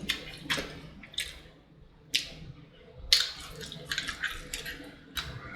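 Close-miked eating sounds: fried chicken coated in sauce being chewed, with wet crunches, smacks and crackles at irregular intervals and a cluster of them about three to four seconds in.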